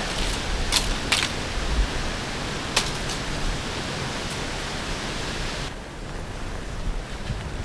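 Steady outdoor hiss of wind through the woods, with a few short sharp crackles in the first three seconds; the high part of the hiss drops away near the end.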